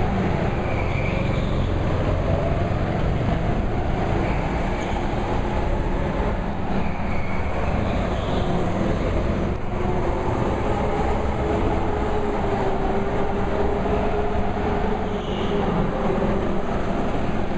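Go-kart motors running, a steady drone whose pitch slowly rises and falls as the karts drive round the track.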